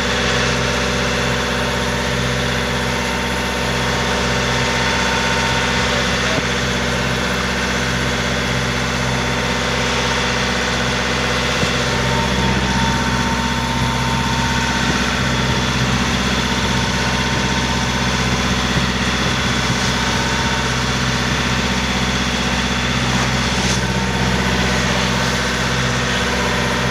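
Tour boat's engine running steadily, a constant hum with even overtones.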